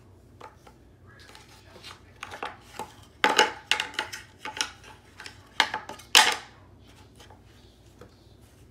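Handling noise: a run of light clicks and clatters of small hard objects, loudest and busiest in the middle.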